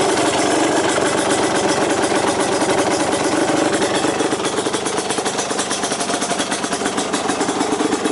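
Yamaha DT230 Lanza's single-cylinder two-stroke engine idling steadily through a PRO SKILL expansion chamber and silencer, a rapid, even run of exhaust pulses.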